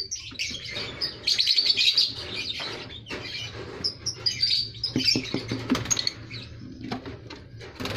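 Lovebirds chirping and chattering, many calls overlapping without a break, with a few sharp clicks about five to six seconds in.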